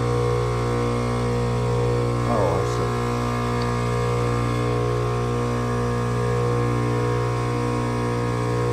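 Trane outdoor condenser unit humming steadily, a deep electrical mains-pitched drone, while its fan motor gets voltage but does not start; the fan motor's bearings are shot.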